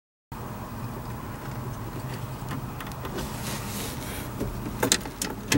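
Steady low mechanical hum of the Ford F-150 running, with a few sharp clicks near the end.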